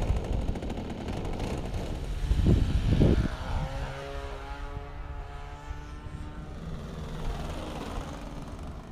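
A U-Can-Do radio-controlled aerobatic plane with an O.S. 15cc engine flying a low pass, its engine and propeller note dropping in pitch as it goes by. There is a louder low rush about two to three seconds in.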